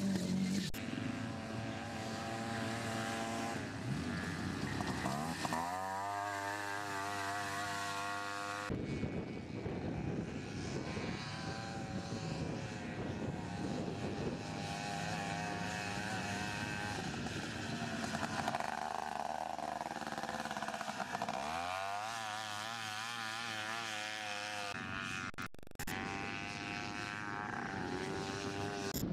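Small off-road buggy and ATV engines racing: engines buzzing and revving up and down through the gears as the vehicles drive past, with sudden changes in the sound where shots are cut together.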